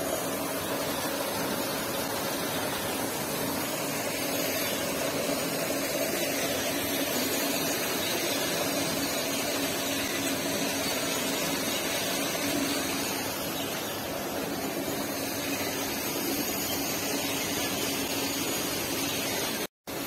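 Steady mechanical hum and hiss with two steady low tones running under it. It cuts out completely for a moment near the end.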